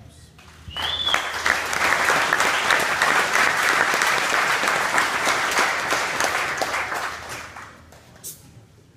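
Audience applauding for a newly promoted black belt. The clapping breaks out about a second in, with a short whistle as it starts, holds for about six seconds, then dies away.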